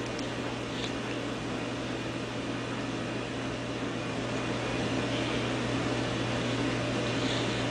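A steady low hum under a constant even hiss, with no distinct knocks or scrapes standing out.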